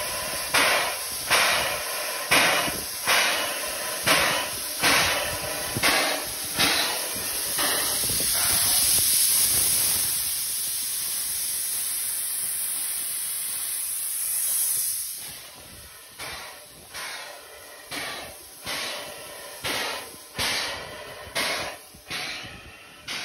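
Steam-driven locomotive air compressor (air pump) of C&NW R-1 #1385 running on an orifice test: its steam exhaust chuffs in a steady rhythm of about one and a half puffs a second. For several seconds in the middle a steady hiss of air blowing from the test orifice covers the chuffs, which then return a little quieter.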